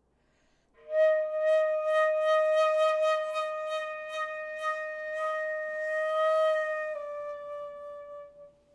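Concert flute holding one long note, entering after about a second of silence and pulsed by breathy accents about two or three times a second. About seven seconds in the note drops slightly in pitch, then fades away.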